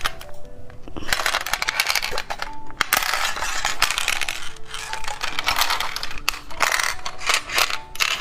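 Plastic candy-toy packaging being opened and handled by hand: dense crinkling with many sharp clicks. Light background music with a simple melody plays underneath.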